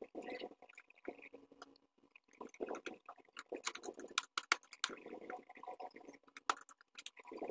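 Handling noise from a vacuum cleaner's plastic housing as its parts are pressed and fitted together: irregular sharp plastic clicks and taps mixed with short rustling scrapes.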